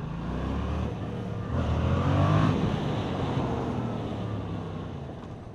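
Yamaha MT-07 motorcycle's parallel-twin engine pulling away and accelerating while riding in traffic. Its pitch rises in the first second or so, it is loudest about two seconds in, then it eases off.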